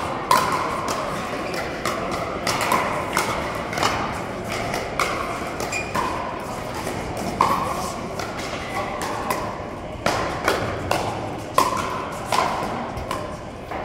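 Pickleball paddles striking a plastic ball in a fast rally: sharp pocks about once or twice a second, each with a short ring, with more hits from neighbouring courts.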